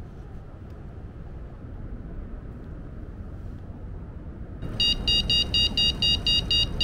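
Over a low steady rumble, an electronic carp bite alarm starts beeping about two-thirds of the way in: a fast, even run of high beeps, about five a second. It signals a take, a carp picking up the bait and pulling line off the rod.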